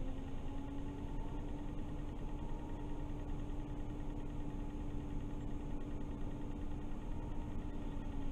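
MAN Lion's City CNG city bus idling at a standstill, heard inside the driver's cab: a steady low hum with a held tone over a low rumble.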